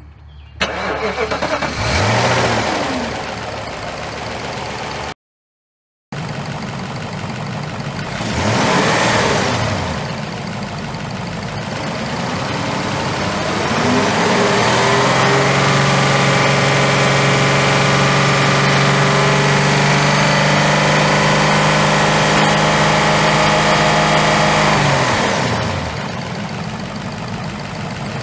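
Car engine starting, then blipped up a couple of times, and from about halfway through held at raised revs for some ten seconds before dropping back, with a short break in the sound about five seconds in. The engine is being run and revved to work trapped air out of the coolant system.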